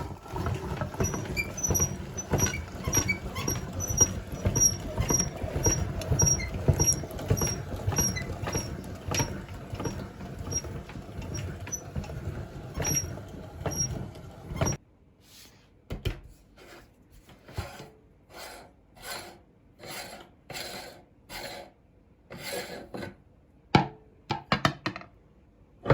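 Meat grinder churning ice cream: a steady grinding rumble with a faint high squeak about twice a second. Past the halfway mark the grinding cuts off suddenly, and a run of soft, evenly spaced knocks follows, with a few louder clatters near the end.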